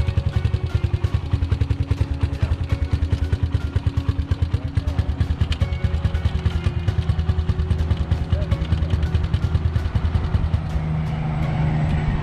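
1997 Honda XR200R's single-cylinder four-stroke engine running at idle with a rapid, even putter. Near the end the engine speed picks up and the pulses blend into a smoother, steadier note.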